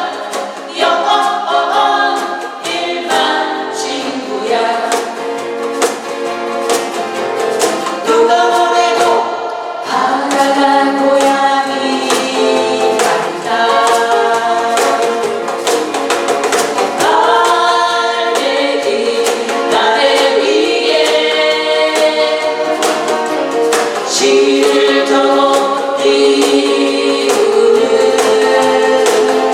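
A group singing in unison to strummed acoustic guitars.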